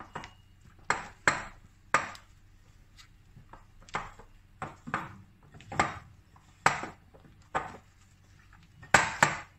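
A kitchen utensil knocking against a mixing bowl while flour is worked into pizza dough: about a dozen sharp, uneven knocks.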